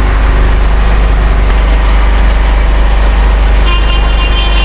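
Steady low rumble of road traffic, engines running close by. A high steady tone, about a second and a half long, starts near the end.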